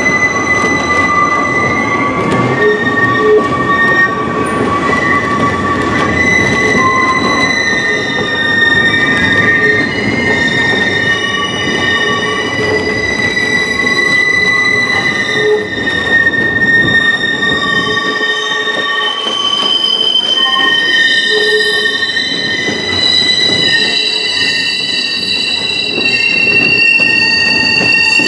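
Passenger train's steel wheels squealing against the rails, several high steady squeals that come and go and shift in pitch over the running rumble of the cars. The deepest part of the rumble drops away about two-thirds of the way through.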